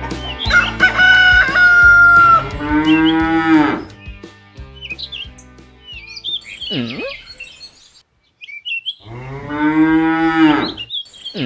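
Cows mooing: two long moos, one a few seconds in and one near the end, with bird chirps and short squeaky calls between them.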